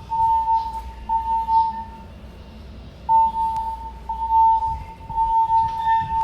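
Building fire alarm evacuation tone from the ceiling speakers, sounding in the temporal-three pattern: three one-second beeps of a steady high tone, a pause of about a second, then three more. This signals a general evacuation following a smoke detector activation. A low hum runs underneath.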